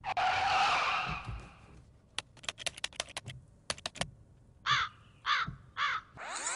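Edited-in sound effects: a short whoosh, then a quick run of sharp clicks like keyboard typing, then three short crow caws about half a second apart near the end.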